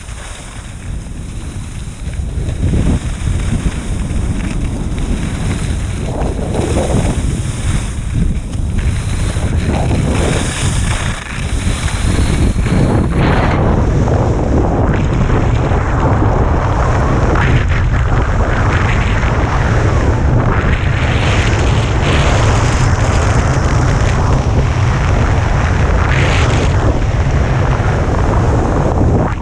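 Wind buffeting a helmet or chest camera's microphone as the wearer skis fast downhill, a loud steady rumble with the hiss and scrape of skis on snow. It grows louder about two seconds in and again about halfway through as the speed picks up.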